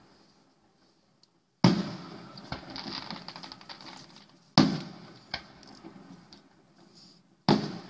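Aerial firework shells bursting: three sharp bangs about three seconds apart, each trailing off in an echo, with a spatter of crackles after the first.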